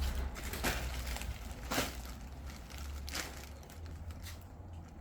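A few scattered knocks and bumps over a low rumble, as bagged care packages are handled and loaded.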